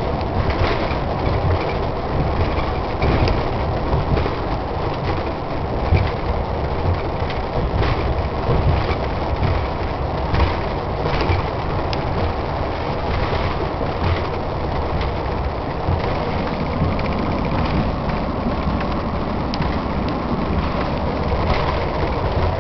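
Steady road and engine rumble heard inside a vehicle driving at speed across a road bridge, with frequent small clicks and rattles.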